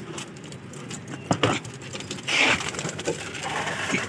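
Feed and water dishes being handled and lifted off a gravel pigeon-cage floor: scattered knocks and clinks, a sharper knock about a second and a half in, and a short scraping rush a little past the middle.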